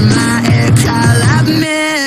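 Background pop-rock music: a heavy bass line under held higher notes. Near the end the bass drops away, leaving only the high held notes.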